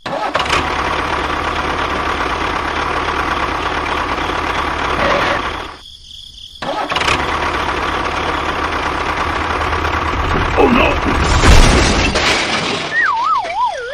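A small motor running steadily. It drops out for under a second midway, then returns. Near the end comes a wavering, falling whistle-like tone.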